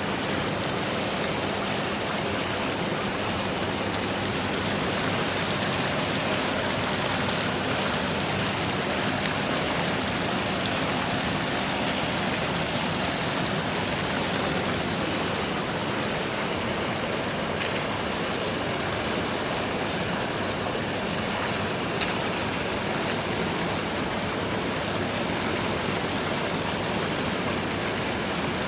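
Steady rush of flowing water, an even hiss that holds without change, with one short click about 22 seconds in.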